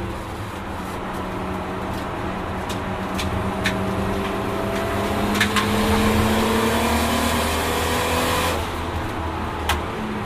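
Nissan Skyline R32 GT-R's single-turbo RB26 straight-six heard from inside the cabin, pulling under load with its pitch rising slowly for about eight seconds. Near the end the engine note drops off abruptly, and a few sharp clicks sound along the way.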